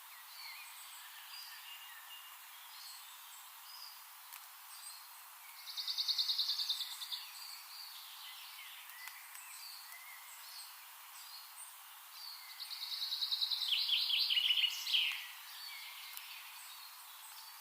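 Small birds singing: scattered short chirps throughout, and two loud trills of fast repeated notes, one about a third of the way in and a longer one later that drops lower at its end.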